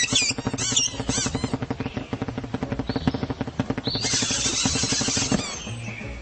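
Cartoon birds squawking and chattering in alarm: squeaky rising-and-falling calls at first, then a fast, dense chatter. About four seconds in a bright hissing sound with a held high note joins in and cuts off suddenly more than a second later.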